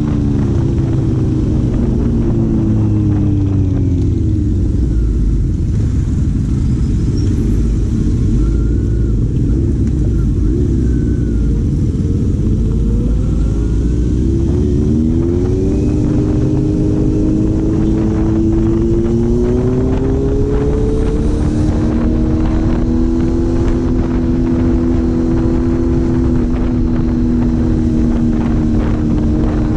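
Four-cylinder engine of a moving vehicle under way: its note falls as it slows a few seconds in, runs low under a heavy rumble, then climbs again about halfway through and settles to a steady cruise.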